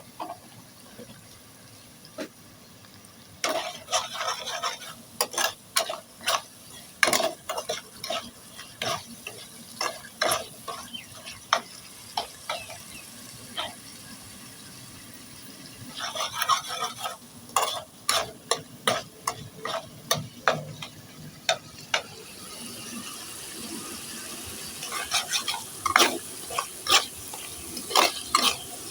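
A spatula stirring masala frying in a kadai, in bursts of quick scraping and knocking strokes against the pan. A soft sizzle of spices frying in oil rises in the second half.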